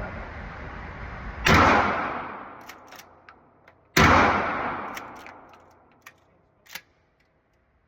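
Two shotgun shots from a Smith & Wesson Model 916A pump shotgun, about two and a half seconds apart, each followed by a long echo that fades over a couple of seconds, with a few light clicks between and after them.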